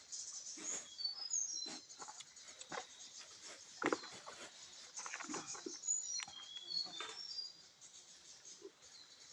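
A small animal's short, high-pitched chirps and squeaks, many in a row, mixed with soft clicks and taps.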